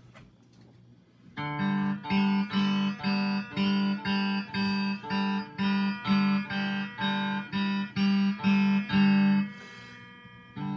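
Electric guitar strumming the same chord over and over in short, choppy strokes, about two a second, starting a little over a second in. The strumming stops near the end and the last chord rings out.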